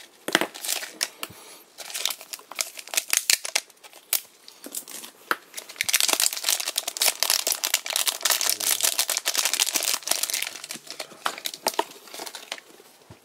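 Thin clear plastic wrapper crinkling and crackling as a capsule-toy figure is unwrapped by hand. The crackles are sparse at first and grow dense and steady about six seconds in.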